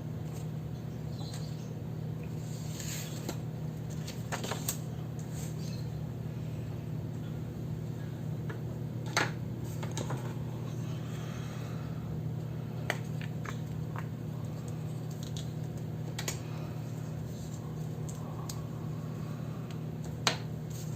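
Journaling desk sounds: about six light, scattered clicks and taps from handling pens and paper, with soft rustling between them, over a steady low hum.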